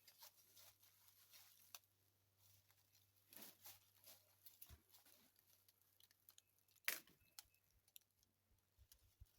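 Near silence: faint rustling and light ticks, with one sharp click about seven seconds in.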